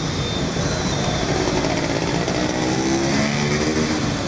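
City street traffic. About two and a half seconds in, a motorcycle engine revs past, its pitch rising and then dropping.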